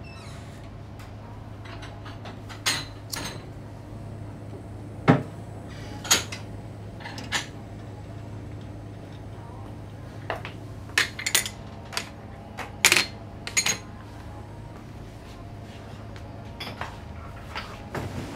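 Small coffee cups and dishes clinking and knocking as coffee is served, in irregular single clinks over a steady low hum.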